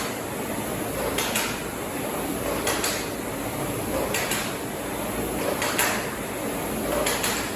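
An air-resistance erg's flywheel fan whooshes steadily, surging with each stroke about every one and a half seconds, as someone works the machine hard.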